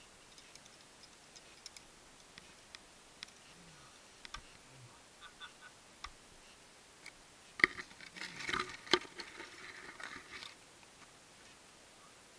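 Scattered light metallic clicks and taps of climbing gear, carabiners and harness slings, being handled, with a denser, louder run of clicks and rustling about eight seconds in.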